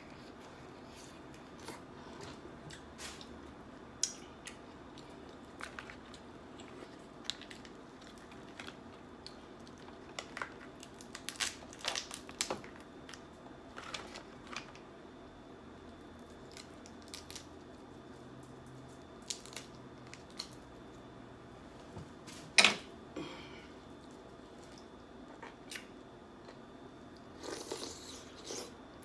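Snow crab legs being snapped and cracked apart by hand, with close-up chewing of crab meat. Short sharp cracks and clicks come at scattered moments, the loudest a little past three-quarters of the way through.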